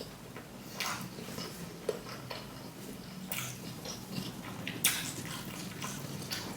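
A person eating close to the microphone: wet chewing and smacking with irregular crisp crunches and clicks, the sharpest about a second in, near two seconds, just past three seconds and near five seconds.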